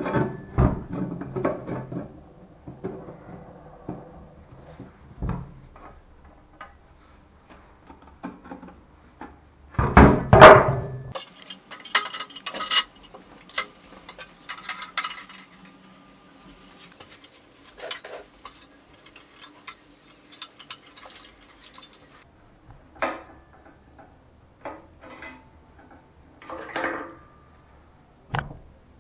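Scattered metal clinks and knocks from the parts of a Keeway RKS motorcycle exhaust silencer, its end cap and perforated core, being handled and worked on at a bench and vise. The loudest knock comes about ten seconds in, followed by a run of lighter clinks.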